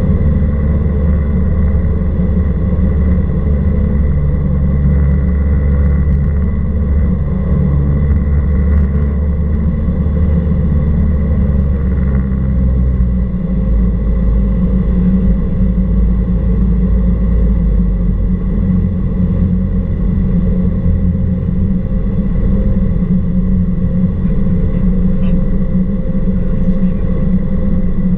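Cessna 172R Skyhawk's four-cylinder Lycoming engine and propeller droning steadily in flight; the engine note shifts about halfway through.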